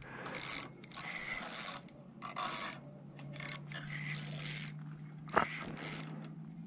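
Fishing reel running in repeated short, rattly bursts while a hooked carp is fought.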